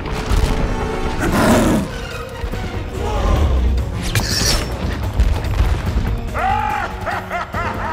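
Action-film soundtrack: orchestral score over deep booms and the rumble of crashing rock, with a run of short shouts near the end.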